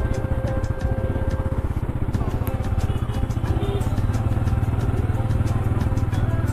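Motorcycle engine running steadily at low revs as the bike rolls slowly through traffic, with light ticking over it.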